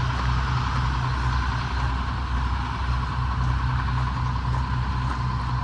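GE 55-ton diesel-electric locomotive's engines running steadily, a deep low engine note with a constant hiss and hum above it.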